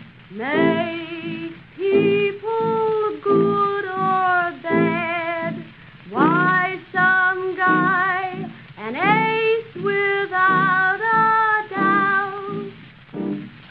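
A woman singing a slow song in phrases of a second or two, with wide vibrato, often sliding up into the note. The piano accompaniment comes from a 1938 recording, whose narrow, muffled sound has no top end.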